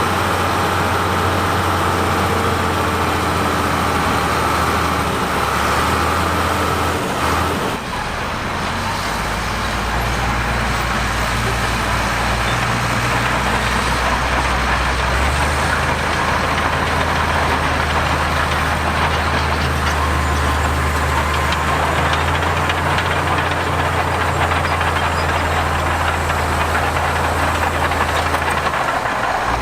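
Diesel engine of heavy earthmoving machinery running steadily under work. About eight seconds in the engine note dips briefly and changes, then it runs on steadily.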